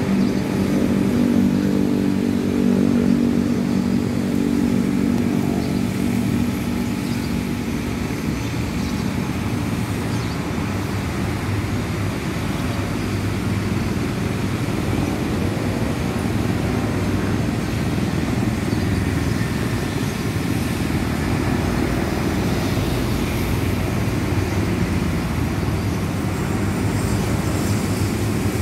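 Steady low engine drone, with a steady-pitched engine hum standing out over the first several seconds before it blends into the drone.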